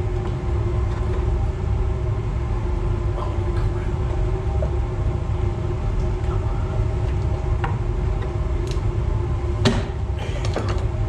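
A steady low mechanical hum runs throughout. Near the end there is one sharp metallic clink, followed by a few lighter clicks, from hand tools at work on the steering rack.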